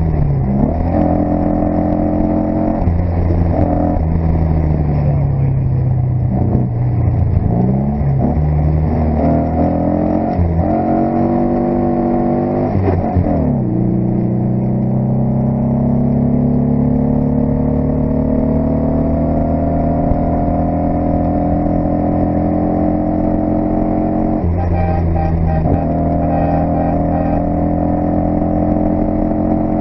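Rally car engine under hard acceleration, heard from inside the open cockpit. The revs climb and fall back again and again with gear changes and lifts in the first half. In the second half the engine pulls in one long steady climb, drops about five seconds from the end, and climbs again.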